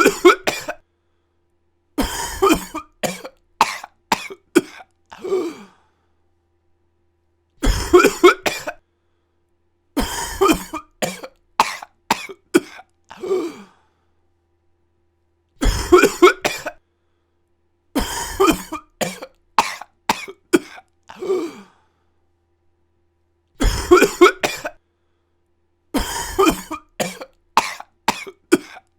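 A person coughing in repeated fits: each fit is a short hard cough followed after a brief pause by a run of about five harsh coughs, then a couple of seconds of dead silence. The same fit repeats about every eight seconds.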